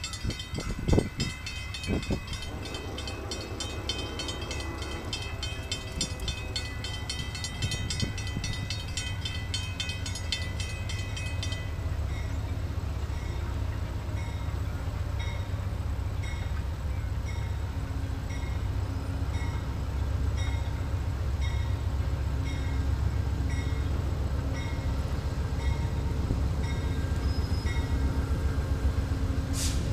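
Amtrak passenger train's diesel locomotive approaching, its low engine rumble growing steadily louder. Bells ring over it: fast ringing at first, changing about twelve seconds in to a slower ding about once a second. A sharp click comes near the end.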